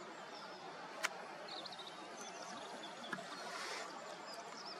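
Outdoor ambience: a steady background hiss with faint, high, short bird chirps scattered through the middle, and a single sharp click about a second in.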